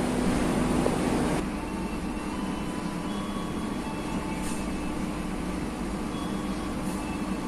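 Steady running noise of a passenger train. A louder rush of noise cuts off abruptly about a second and a half in, leaving a lower, even hum with a few faint held tones.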